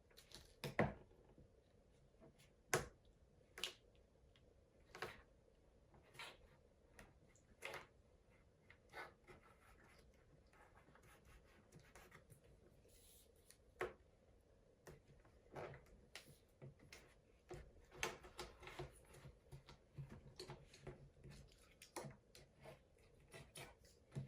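Hands working 3M double-sided tape onto a carbon fibre diffuser: faint scattered clicks, taps and rubbing, sparse at first and coming more often in the second half.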